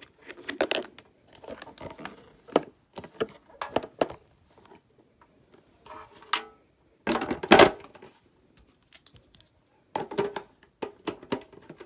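Hands handling the plastic parts of a warm-mist humidifier: a series of irregular clicks and knocks, with one longer, louder clatter a little past halfway.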